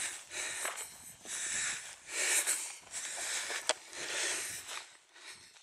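A walker breathing hard and rhythmically, about one breath a second, with footsteps through rough moorland grass and heather.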